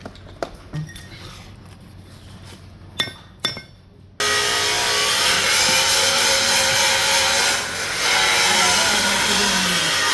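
A few light clinks and knocks, then a loud power tool starts abruptly about four seconds in and runs steadily.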